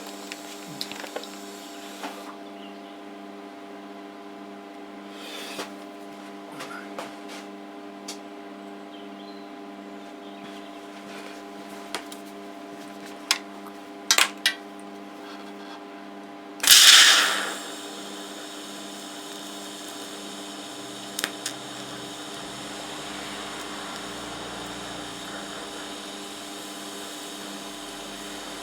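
TIG welder buzzing steadily with scattered sharp clicks and crackles while pinholes in a rusty fuel tank are being welded shut. About seventeen seconds in there is a loud hiss lasting under a second, and a steady hiss carries on after it.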